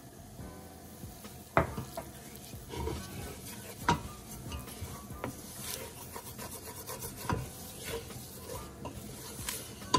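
Wooden spoon stirring and scraping flour into butter, onion and garlic in a stainless steel pot while making a roux, with three sharp knocks against the pot.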